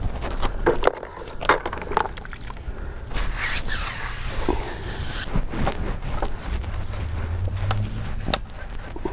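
Brushes scrubbing a wet, cleaner-soaked car tire and alloy wheel: a stiff tire brush rasping on the rubber, then a thin lug-nut brush, with scattered clicks and knocks.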